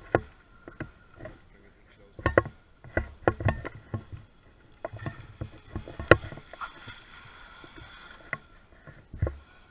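Faint steady high whine of a radio-controlled electric jet boat's motor and jet pump running out on the water. Over it come many sharp, irregular clicks and thumps, the loudest about a second into the second half.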